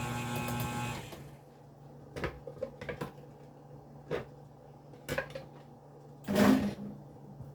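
Electric mixer motor running steadily, switched off about a second in. Then a handful of short clicks and knocks, with the loudest, a longer clatter, near the end.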